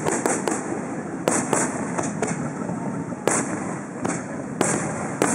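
Aerial firework shells bursting overhead: about ten sharp bangs at irregular intervals, some in quick pairs, over a constant rushing background noise.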